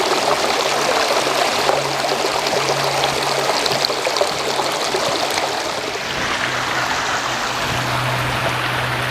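Stream water running with a steady rush, a little quieter after about six seconds.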